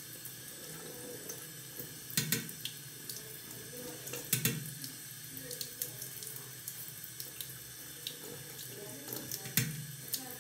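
Water tap running steadily into a bathroom sink, with a few short sharp knocks about two, four and a half and nine and a half seconds in.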